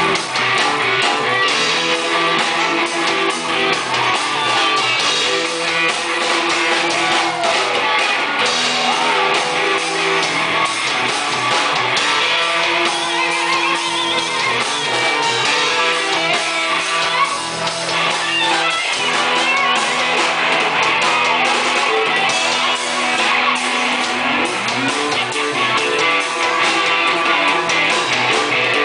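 A live hard rock and blues band playing at a sound check, with electric guitars prominent in a full, loud band sound.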